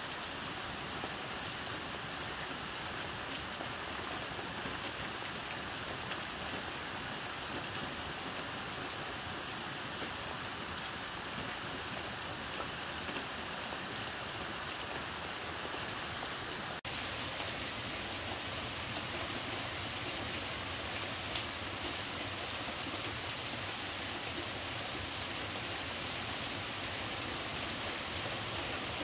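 Heavy rain falling steadily on the roof, heard from inside a camper as an even, continuous hiss. There is a brief break about seventeen seconds in, after which the hiss is a little brighter.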